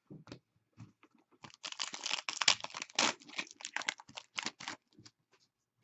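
Hockey trading cards and their foil pack wrapper being handled. There are a few light clicks, then a dense run of crinkling and rustling for about three seconds, followed by a few more light clicks.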